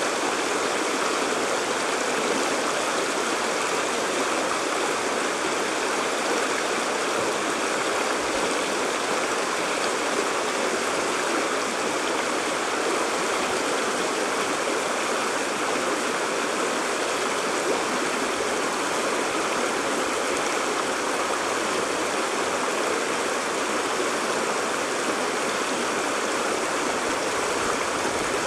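Shallow rocky stream running over and around rocks in small riffles: a steady, even rush of water.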